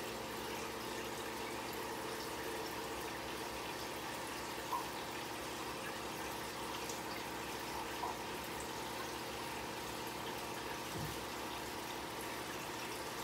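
Aquarium equipment running: a steady hum with water trickling and bubbling. Two faint short clicks come midway, and a soft low thump near the end.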